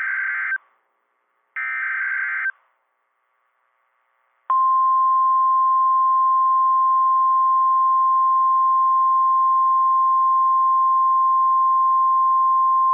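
NOAA Weather Radio SAME alert: the end of one short burst of shrill warbling data tones, then a full burst about a second long. After a gap of about two seconds, the steady single-pitch 1050 Hz warning alarm tone starts about four and a half seconds in and holds, marking the start of a tornado warning broadcast.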